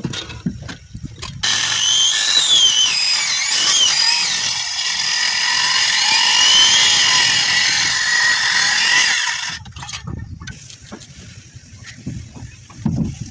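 Handheld electric circular saw cutting through a thick block of hard acacia (kikar) timber. It starts about a second and a half in, runs for about eight seconds with a whine that wavers in pitch as the blade loads, then stops; a few light knocks of wood follow.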